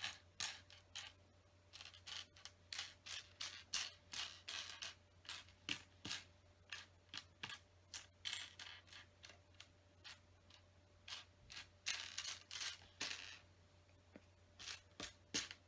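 Loose plastic LEGO pieces clicking and rattling against each other as a hand sifts through a pile in search of one part: a long run of irregular small clicks, with a brief lull about two-thirds of the way through.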